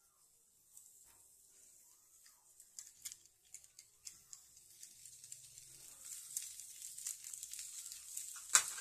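Besan dosa sizzling on a hot tawa: a soft, crackly hiss dotted with small ticks that grows louder through the second half, with one sharper click near the end.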